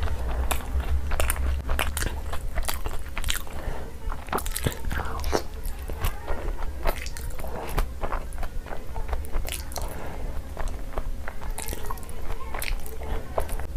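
Close-miked eating: wet chewing and mouth smacking of luchi, chicken curry and fries, with many quick, irregular clicks, over a steady low hum.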